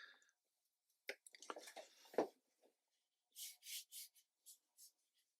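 Brush strokes on watercolour paper: about five short, quick scratchy strokes, like dry-brush work dragged across the sheet, after a few light clicks and knocks of the brush and tools.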